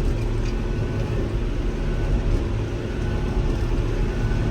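Farm tractor engine running steadily under load, a constant low drone with a steady hum over it.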